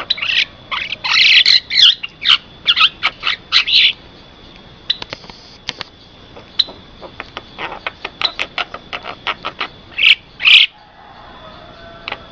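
Javan myna (jalak kebo) calling: a run of loud, harsh chattering notes, then a spell of quick clicking notes, and two more loud calls about ten seconds in.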